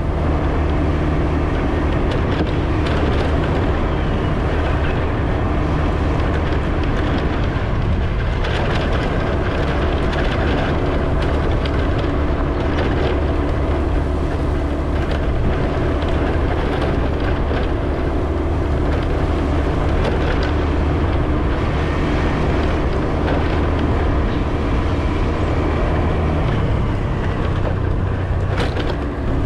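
A vehicle driving on the road: a steady engine drone with tyre and road noise, with a few short knocks from bumps, and the engine note shifting slightly near the end.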